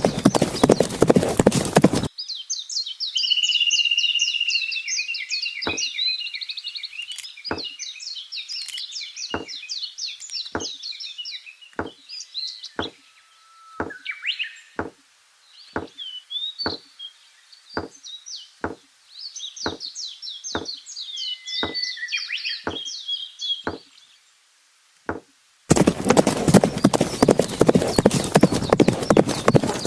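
Birds chirping over a steady, evenly spaced tick a little more than once a second. Dense music with clip-clop hoof sounds fills the first two seconds and returns near the end.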